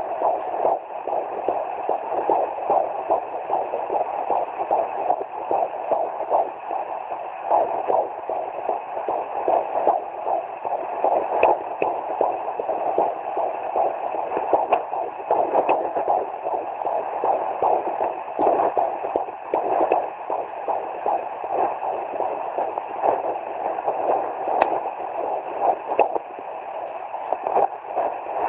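Fetal doppler picking up a 17-week fetus's heartbeat: a rapid, steady whooshing beat.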